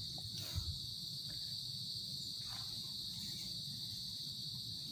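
Steady high-pitched drone of insects. There are a few faint knocks and a dull thump about half a second in from a bamboo crab trap being handled.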